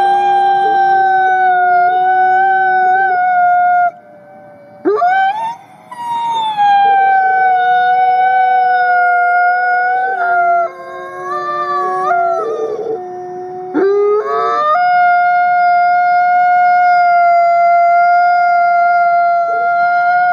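Gray wolf howling in long, steady-pitched howls. It breaks off for breath about four seconds in, and each new howl starts with a quick upward slide.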